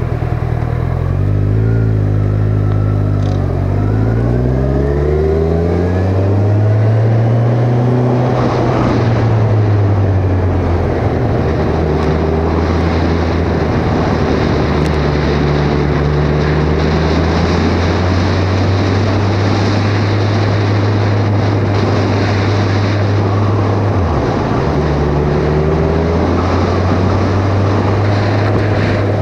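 Kawasaki Ninja 1000's inline-four engine under way, heard from a helmet-mounted camera: the engine note climbs over the first several seconds, then holds steady at cruise with wind rushing over the helmet. Near the end the engine note dips briefly and comes back.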